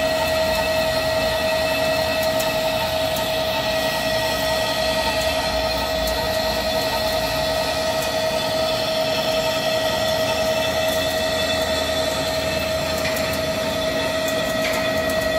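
Hankook Protec 9-NC CNC lathe cutting a heavy workpiece: a steady, unchanging high whine over the machine's running noise.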